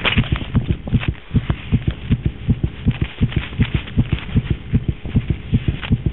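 Fast heartbeat, a steady train of low thudding beats in lub-dub pairs about twice a second.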